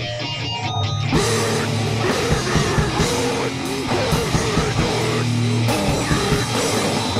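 Live powerviolence band playing: distorted electric guitar, bass and a drum kit with cymbals. A thinner passage of held guitar notes gives way about a second in to the full band at full tilt, the opening of a song.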